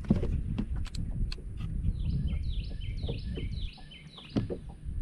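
A songbird sings a short two-part phrase about six times in quick succession, starting about two seconds in and stopping a little after four seconds. Underneath is a steady low rumble with scattered light clicks.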